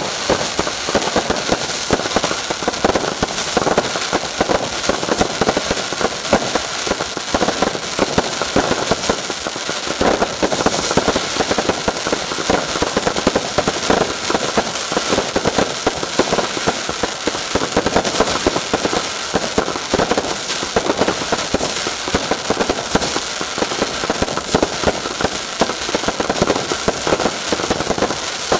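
Fireworks finale: a dense, unbroken barrage of rapid bangs and crackle.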